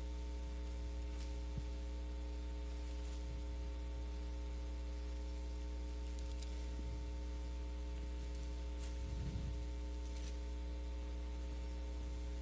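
Steady electrical mains hum, with a few faint clicks and a soft bump.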